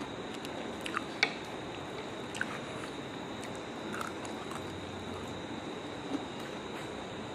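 A person eating syrupy jalebi: chewing and mouth sounds with a few short, sharp clicks, the loudest about a second in, over a steady hiss and a faint high whine.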